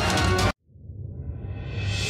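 Background music that cuts off abruptly about half a second in; after a brief silence, music fades back in, swelling from the low end upward.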